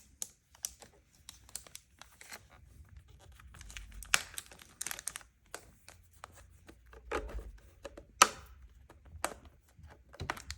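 Protective packaging being pulled and torn off a projector: irregular rustling, crinkling and tearing with scattered clicks, the loudest tug about eight seconds in.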